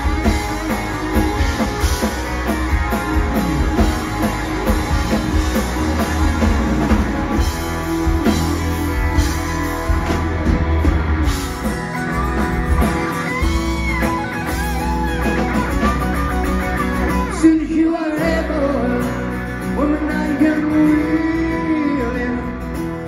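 Live rock band playing loudly, electric guitars over bass and drums. The music breaks and changes to a different, lighter passage about eighteen seconds in.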